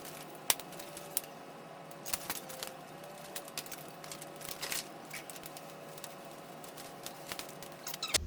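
Light clicks, taps and small rattles of small hard objects being handled, irregular and scattered, over a faint steady hum.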